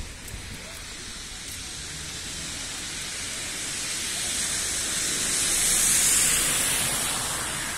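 A rushing hiss that swells slowly to its loudest about six seconds in, then eases off.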